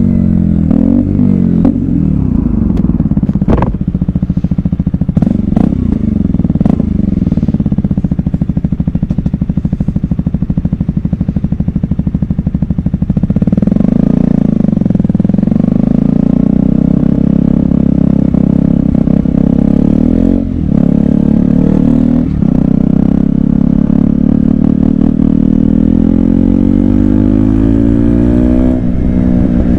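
KTM Duke 125's single-cylinder four-stroke engine under way on a ride, revs rising and falling through the first half, then running steadily at a higher pitch, with a brief dip about two-thirds of the way in.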